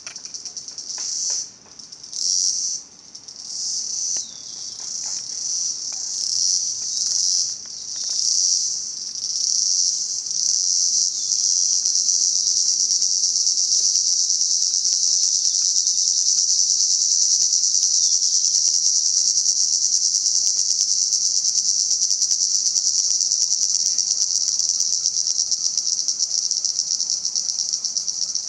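Cicadas buzzing, a loud high-pitched drone. For the first ten seconds or so it comes in swelling pulses about once a second, then settles into one unbroken buzz.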